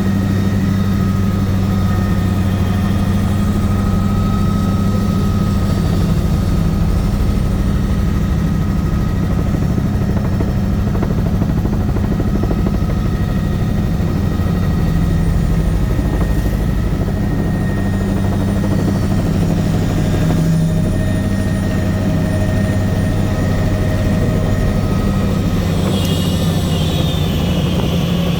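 Bell 505 Jet Ranger X helicopter's Arrius 2R turboshaft engine and rotor running steadily: a loud low drone with a thin, steady high turbine whine above it.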